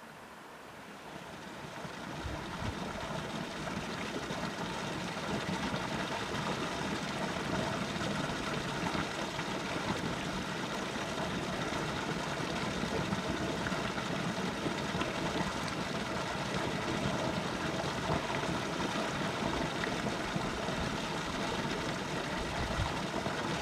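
Steady murmur of flowing water, swelling up over the first two seconds and then holding even.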